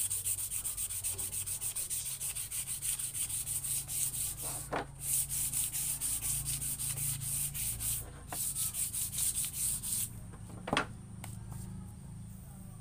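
Sandpaper rubbed by hand along a wooden boat paddle in rapid back-and-forth strokes, with two short pauses. The sanding stops about ten seconds in, followed by one light knock.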